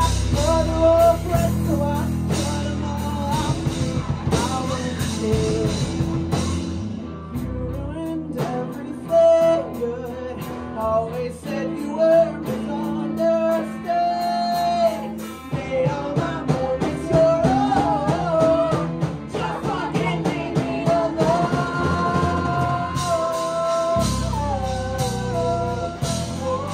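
Live rock band playing: electric guitar, bass and drum kit with a lead singer. The heavy low end thins out partway through and comes back in full about three seconds before the end.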